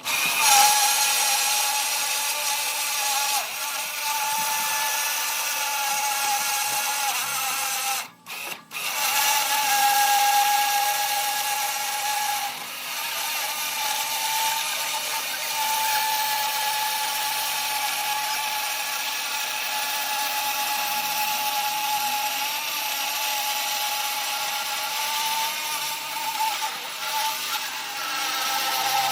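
A power saw cutting wood, running with a steady high whine and overtones. The sound breaks off briefly about eight seconds in.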